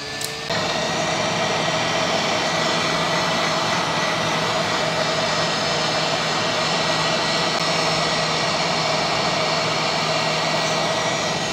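Hot air rework station blowing: a steady rush of air with a faint hum, starting about half a second in. It is heating a faulty chip on a laptop motherboard to desolder it.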